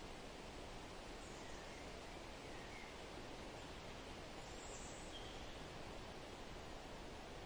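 Steady, faint outdoor background noise from dry scrub country, with a few faint, short bird chirps partway through.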